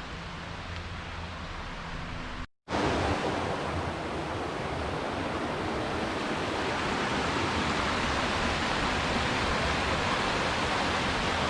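Steady rush of a waterfall's falling water. It cuts out briefly about two and a half seconds in, then returns louder and grows slowly.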